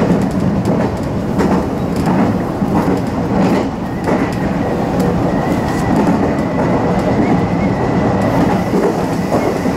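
Meitetsu electric commuter train running along the track, heard from the driver's cab: steady running noise with the wheels clacking over rail joints. A thin high whine holds for a few seconds in the middle.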